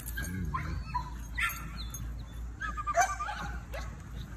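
A young dog whining and yipping in several short, high-pitched calls.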